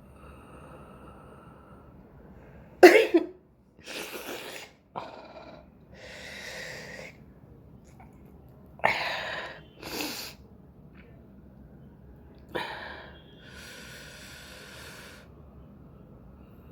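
A person sneezing several times, set off by tickling the inside of the nose with a cotton swab; the loudest sneezes come about three seconds in and about nine seconds in, with shorter bursts and breathy stretches between.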